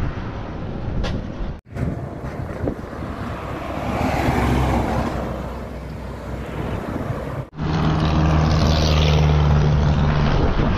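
Heavy tanker trucks passing on a highway: diesel engine noise and tyre noise. The sound breaks off sharply twice, about a second and a half in and again past seven seconds. In the last part a truck's diesel engine hums steadily as it comes closer.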